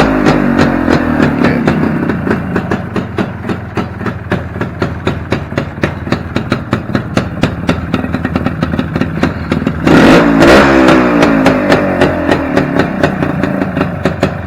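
1972 Suzuki TS250's single-cylinder two-stroke engine idling with rapid, even firing beats, warm and running off the choke. About ten seconds in the throttle is blipped: the engine revs up loudly, then drops back to idle.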